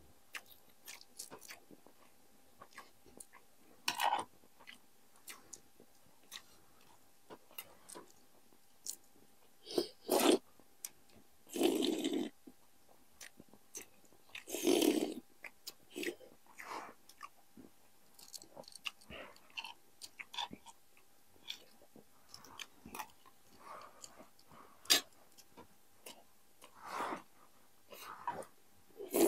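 Close-up eating sounds: food being chewed and bitten, with many small wet mouth clicks and a handful of louder bites or crunches spread through, the biggest around ten to fifteen seconds in.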